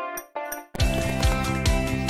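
Background music: a few short separate notes, then about three-quarters of a second in the full track comes in with a steady beat.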